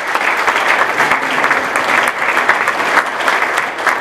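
Audience applauding, many hands clapping steadily throughout.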